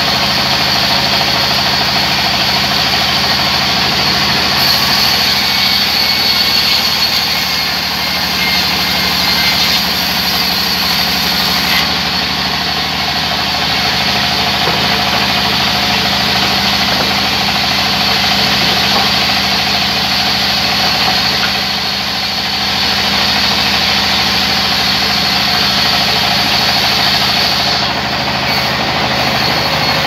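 Large sawmill band saw running steadily while a log is fed through its blade: a constant low machine hum under the noise of the cut. The sound dips briefly twice.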